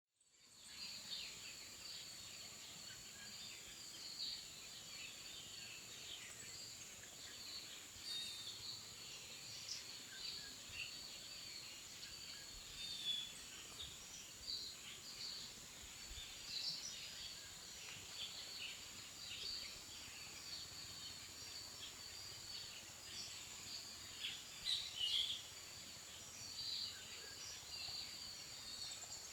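Outdoor ambience of many small birds chirping, with a steady high-pitched insect hum underneath.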